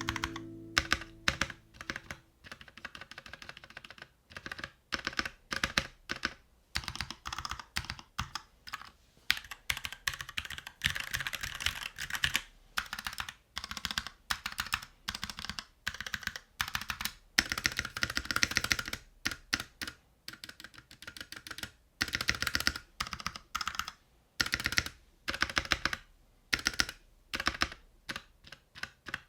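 Typing on a NovelKeys NK65 Entry 65% mechanical keyboard fitted with Gateron Yellow switches, a keyboard sound test. Fast runs of keystrokes come in bursts separated by short pauses.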